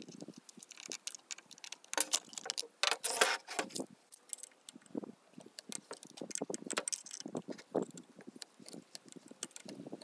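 Irregular metallic clinks, taps and scrapes of an Allen key and small metal parts being handled, with a busier patch of rattling about two to four seconds in, as a chainsaw's air-filter base plate and carburetor mounting are taken apart by hand.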